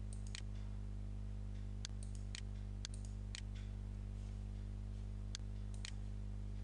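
Computer mouse button clicking several times, some clicks in quick pairs about half a second apart, over a steady low electrical hum.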